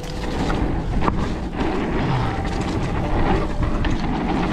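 Wind buffeting the microphone over the rumble of a fully rigid mountain bike's fat 27.5 x 3 in tyres rolling over dirt singletrack, with a few sharp clicks and rattles from the bike.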